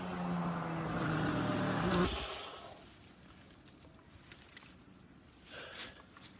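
Stihl chainsaw idling steadily, then shut off about two seconds in. After that there is quiet, with one brief soft noise near the end.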